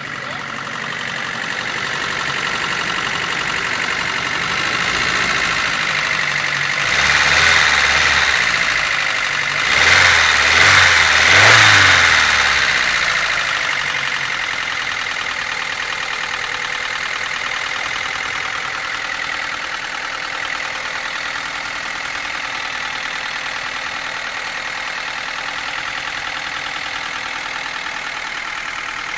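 Nissan S13's engine idling, revved once about seven seconds in and in several quick blips around ten to twelve seconds in, then settling back to a steady idle, run to show a noise in the engine.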